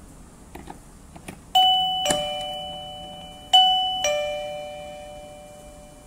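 CallToU door chime sounding a two-tone ding-dong twice, a higher note then a lower one about half a second apart, each ringing out and fading slowly. A few faint clicks come just before the first chime.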